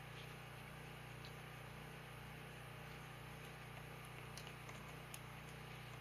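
Faint steady hum with two or three light clicks about four and five seconds in, from the metal power valve cable ends and fittings being handled as they are hooked up.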